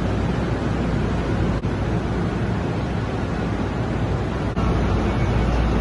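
Steady rumble and hiss of a double-deck NJ Transit commuter train standing at an underground station platform with its doors open, with a low machinery hum under it. The sound drops out for an instant twice.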